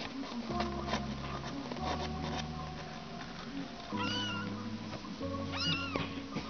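Very young kittens mewing: thin, high calls, one about four seconds in and another near the end, over background music of slow held chords.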